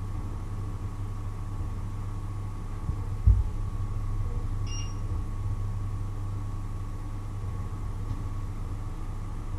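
Steady low hum from a running kitchen appliance, with a dull thump about a third of the way in. A short electronic beep follows just after, as the touch controls of a glass-top electric stove are pressed.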